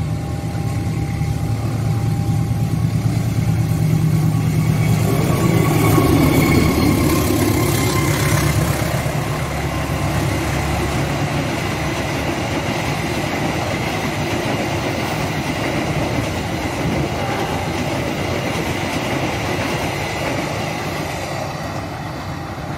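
Passenger train passing at speed, its locomotive going by first and then a long rake of coaches rolling over the rails. It is loudest about six seconds in and eases off near the end.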